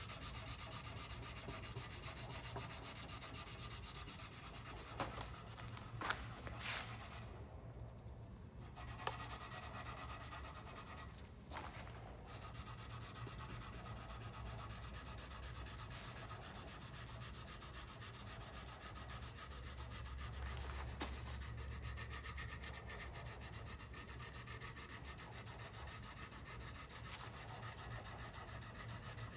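Sandpaper being rubbed back and forth over cured epoxy on a carbon fibre rigger, a steady dry scratching, dry-sanding the repair flat, with two short pauses about a third of the way in.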